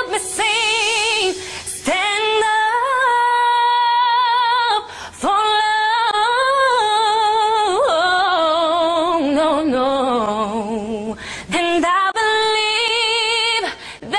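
A woman singing unaccompanied, in long held notes with a wide vibrato, her phrases breaking off briefly about 2, 5 and 11 seconds in.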